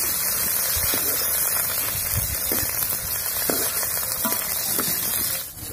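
Sliced onions sizzling steadily in hot mustard oil in a kadhai, frying toward light brown, with a slotted metal ladle now and then scraping as they are stirred.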